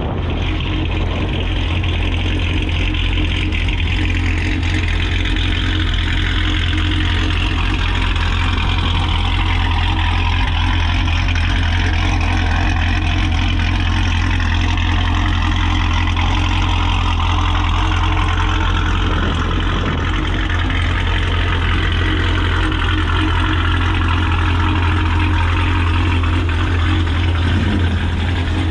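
Classic car engines running as cars roll in slowly past, a steady deep engine rumble throughout.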